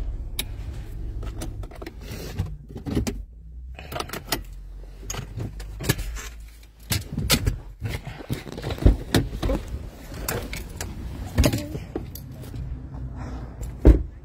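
Someone shutting off a parked car and getting out: a low engine hum gives way a few seconds in to clicks, knocks and rustling of phone and key handling, with one loud knock near the end.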